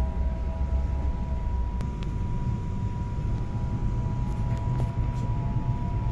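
Electric commuter train running at speed, heard from inside the carriage: a steady low rumble with a thin constant tone above it and a few light clicks.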